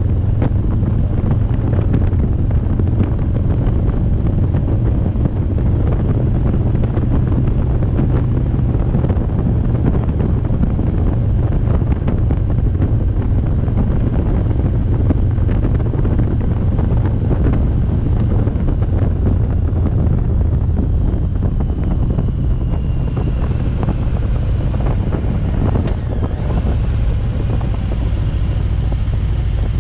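Motorcycle running steadily at road speed, with wind buffeting the microphone.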